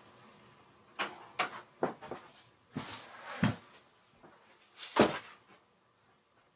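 About eight separate knocks and thumps over four seconds from a person moving about a small room, the loudest about five seconds in.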